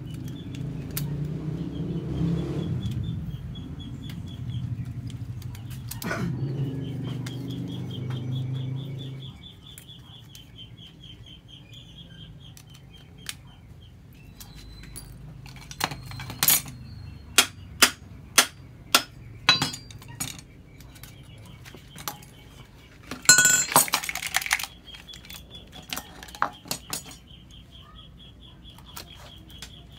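Metal clicking and clinking from a motorcycle open exhaust pipe being put back together during a repack: a run of sharp clicks, a brief rattle in the middle of it, then a few lighter clinks. A low rumble fills the first few seconds.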